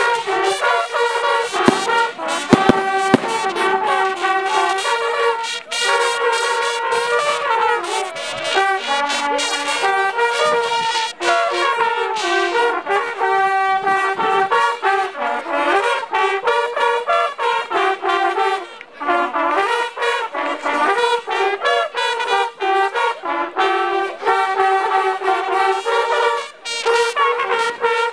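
Brass band music playing a melody throughout, with a couple of sharp clicks about two to three seconds in.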